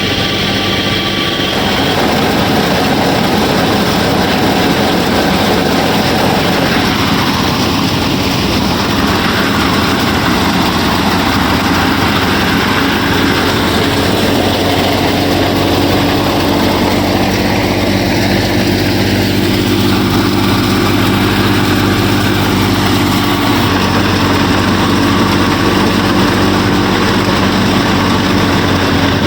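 A DIY miniature combine harvester running steadily, its motor drive and threshing mechanism giving a constant droning hum. A higher whine drops out about a second and a half in.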